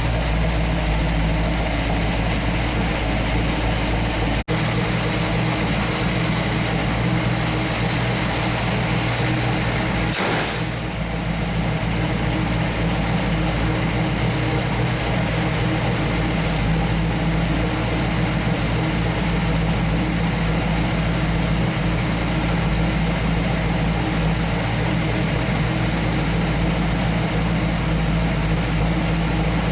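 1968 Pontiac Firebird's V8, a 428 stroked to 462 cubic inches with a 455 HO top end, idling steadily, with a momentary dropout about four seconds in.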